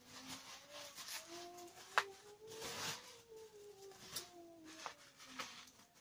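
Bubble wrap crinkling and rustling as it is pulled off a rifle, with a sharp click about two seconds in and a few lighter clicks later.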